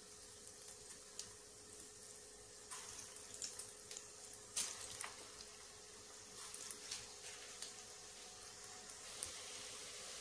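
Falabel balls frying in hot oil in a steel pan: a faint sizzle with scattered pops and crackles, the bubbling growing thicker toward the end as more balls go in.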